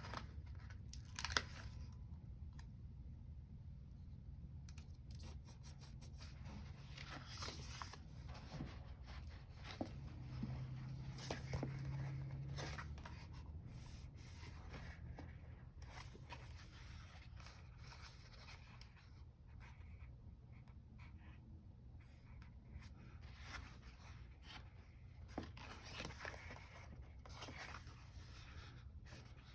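Paper stickers being handled: scattered peeling and tearing sounds with light taps and rustles at irregular moments, over a faint low hum.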